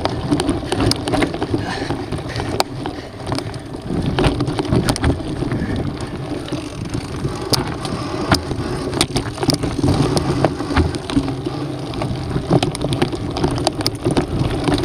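Mountain bike running over a rocky dirt trail: tyres crunching on loose stones and gravel, and the bike rattling, with many sharp clicks and knocks throughout.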